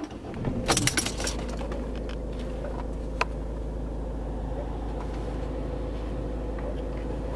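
Steady low running hum of the Volvo S40 heard inside its cabin. A brief rustle comes about a second in and a single sharp click around three seconds in.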